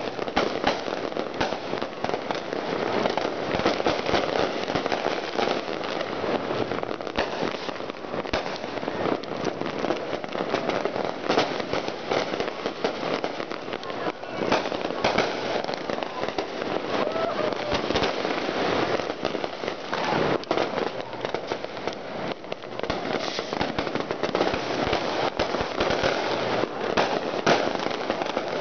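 Many fireworks and firecrackers going off at once, near and far, in a continuous dense crackle of overlapping pops and bangs, several sharp cracks every second.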